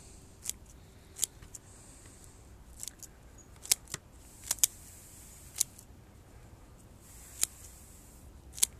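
Bonsai shears snipping through roots: about ten sharp, separate clicks of the blades closing at an uneven pace, with soft rustling between the cuts.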